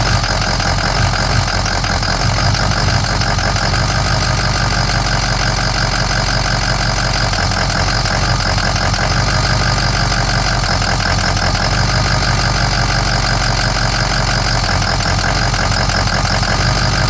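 Ford 6.0 Power Stroke V8 turbo-diesel running steadily at idle. The owner reports a rough idle that sets no trouble codes.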